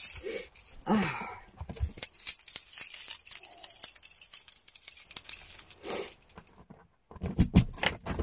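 A bunch of metal keys on a keyring jangling and clinking as they are handled, in uneven spells with a louder cluster of clinks near the end.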